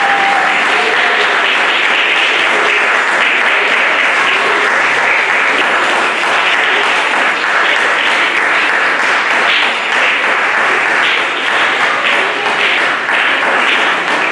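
Audience applauding steadily, a dense clapping that holds at the same level throughout.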